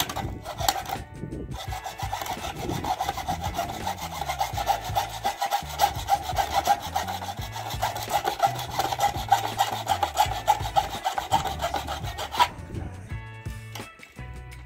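Hand saw cutting into a red plastic electrical junction box with steady back-and-forth rasping strokes, sawing a slot in its side for conduit to pass through. The sawing stops near the end.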